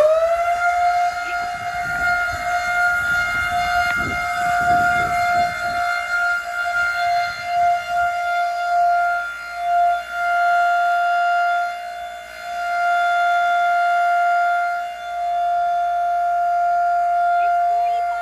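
1920s Federal Electric Type B siren winding up to full pitch about half a second in, then holding one steady wail, its loudness swelling and dipping.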